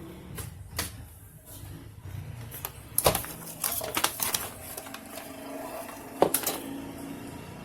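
Scattered clicks and knocks of parts and tools being handled during a TV main-board swap, with the sharpest knocks about three seconds in and about six seconds in, over a low steady hum.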